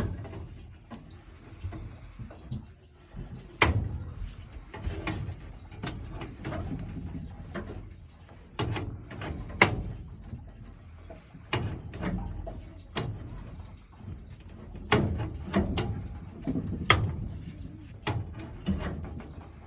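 A copper water pipe being cut by hand with a tubing cutter. Irregular clicks and knocks of the tool and pipe come every second or so over a low rumble.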